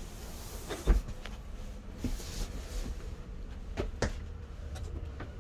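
A few light knocks and thumps, the loudest about a second in and another near four seconds, over a steady low hum.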